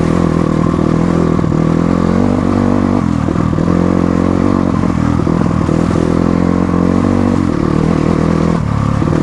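Motorcycle engine running under way. Its pitch climbs about two seconds in and then drops back, with scattered clattering knocks from the bike on the rough off-road track.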